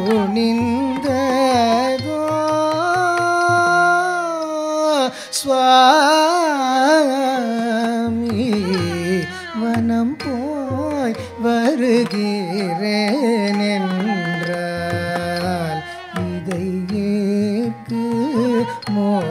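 Carnatic vocal music in raga Husseini: a voice drawing out long, heavily ornamented melodic phrases with wavering gamakas, over a low rhythmic drum accompaniment that pauses for a few seconds in the middle.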